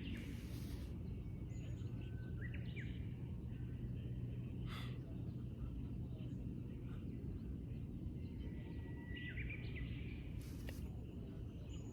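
Outdoor ambience: a steady low rumble with small birds chirping now and then, and a few short rustling noises.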